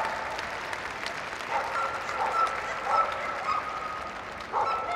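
Audience applauding, with a dog giving several short barks over it; the loudest bark comes near the end.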